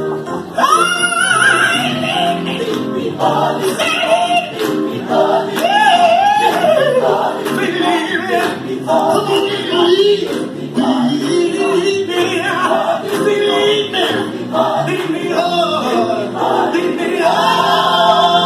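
Gospel choir singing, a lead voice gliding and bending above the group's held chords, with a steady beat of sharp strokes running under it.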